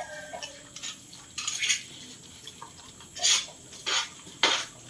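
Several dogs eating rice from plastic bowls on a concrete floor, with a few short bursts of eating noise and bowls knocking against the floor.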